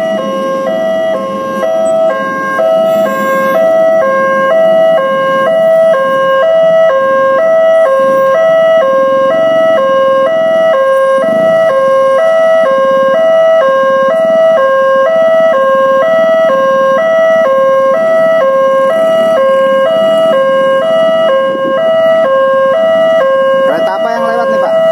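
Indonesian railway level-crossing alarm sounding its standard fast tone: two electronic tones alternating rapidly and evenly, warning road traffic while the barriers are down.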